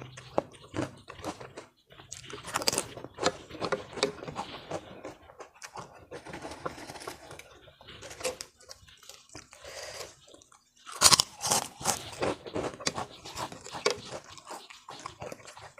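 Close-miked eating sounds: a person chewing and biting a meal of ketupat, chicken opor and potato sambal goreng, with wet mouth clicks and crunchy bites. The loudest bites come about eleven seconds in.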